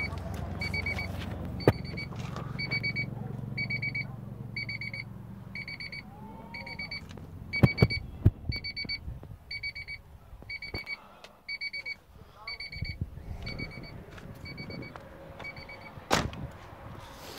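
Car's electronic warning chime beeping steadily, about one beep every 0.8 seconds, and stopping shortly before the end; typical of the chime for an open door with the key in. Underneath, an engine idles low and fades out about halfway through, and there are two sharp knocks, one midway and one near the end.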